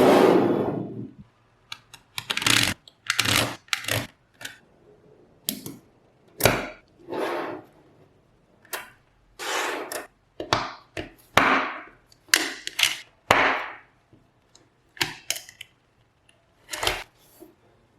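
Small magnetic balls clicking and clacking as they snap together, in irregular sharp clicks with a few short rattling clatters.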